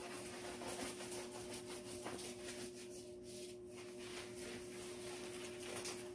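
Quiet room tone: a steady faint hum with scattered soft rustles and ticks.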